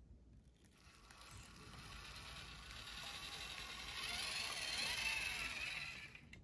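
Toy tractor's small electric motor and plastic gears whirring as it drives. The sound grows louder as the tractor comes close, then cuts off suddenly near the end.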